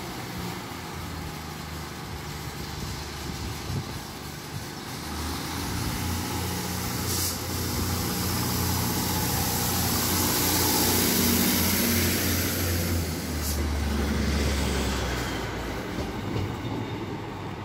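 A Class 156 Super Sprinter diesel multiple unit's underfloor diesel engines running as the train moves along the platform. The low engine note builds to a peak about ten seconds in, then eases.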